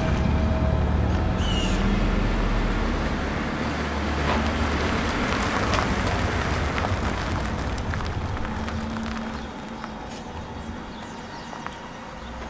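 Compact pickup truck's engine running as it drives slowly up a street and rolls to a stop, with tyre and road noise; the sound drops away about nine and a half seconds in.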